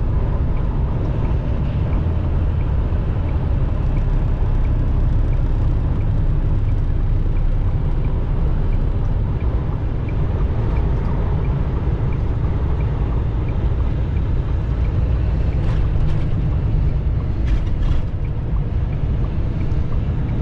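Steady low rumble of a semi-truck's engine and road noise heard inside the cab at highway speed, with a few brief clicks near the end.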